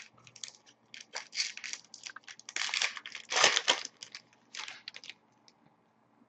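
Trading-card pack wrapper crinkling and tearing open, with cards being handled: a run of quick papery rustles and rips, loudest in the middle, dying away about a second before the end.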